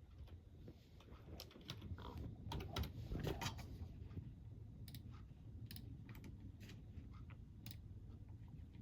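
A crunchy snack being chewed: irregular sharp crackles and clicks over a low, steady rumble, busiest in the first half.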